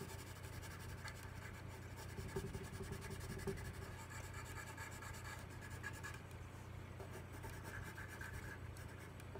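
Colored pencil scratching on paper as texture lines are drawn into a dog's fur, over a steady low hum.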